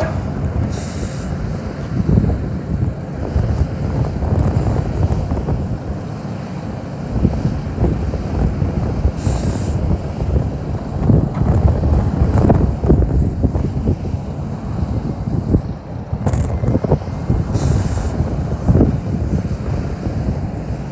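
Steady drone of a Case CX330 excavator's diesel engine running, under heavy wind buffeting the microphone.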